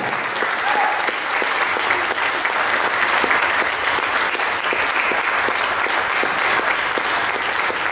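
Audience applauding steadily, a dense run of hand claps.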